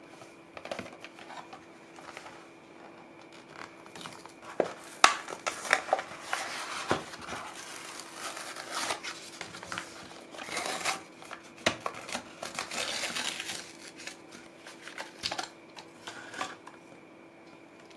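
Cardboard backing being peeled and torn off a toy car's plastic blister pack, with crinkling of the plastic and sharp clicks, the loudest click about five seconds in. It dies away near the end as the die-cast car comes free.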